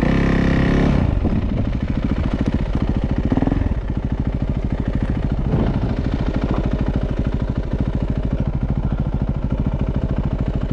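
Dirt bike engine running under load while riding, a fast even run of firing pulses. It is opened up briefly at the start and again about three and a half seconds in, then runs steadily.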